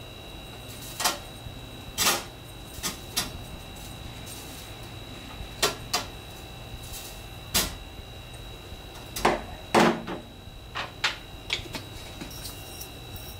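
Scattered short clicks and knocks of seasoning a steak by hand: a seasoning shaker worked over the meat and the steak handled on a stainless steel tray with a wire rack, at irregular intervals, with the loudest knocks a little under ten seconds in.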